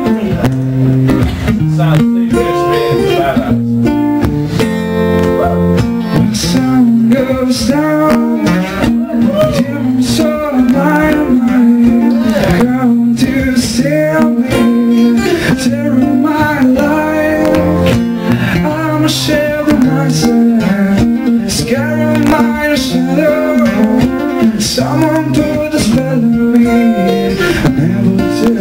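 Acoustic guitar strummed in a steady rhythm while a man sings into a microphone, a live acoustic rock song played through a small venue's PA.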